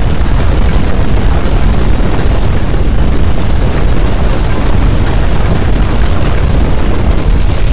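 Strong earthquake shaking picked up by a camera microphone: a loud, steady rumbling noise, heaviest in the low end, with small clicks and rattles through it.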